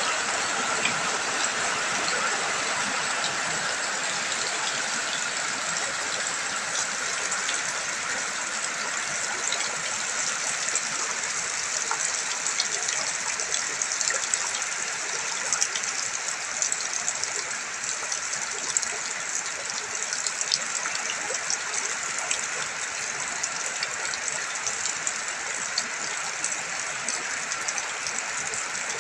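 Steady rain and running water: an even hiss dotted with many small drop ticks.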